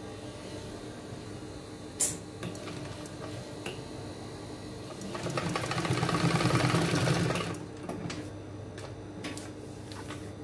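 Industrial sewing machine running a short burst of stitches for about two and a half seconds in the middle, after a sharp click about two seconds in, over a steady low hum.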